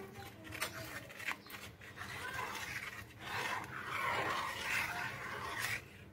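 A metal spoon stirring a milk and milk-powder mixture in a steel pan: a few light clinks against the pan, then a steady swishing and scraping from about two seconds in.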